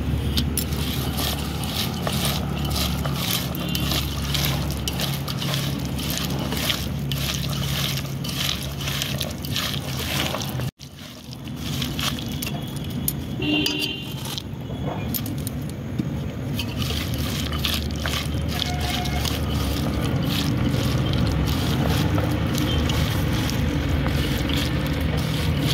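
Hands squishing and squeezing shredded cabbage through wet besan batter in a steel bowl, a run of quick wet squelches with fingers knocking and scraping on the bowl, over a low steady hum. The sound cuts out for a split second about eleven seconds in.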